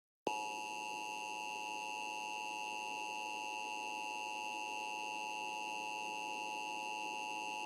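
Emergency Alert System two-tone attention signal: a steady electronic tone that starts a moment in and holds without a break. It is the alarm that announces an emergency alert is about to be read.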